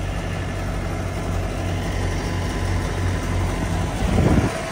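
Steady low hum of an idling engine, with a brief louder rumble about four seconds in.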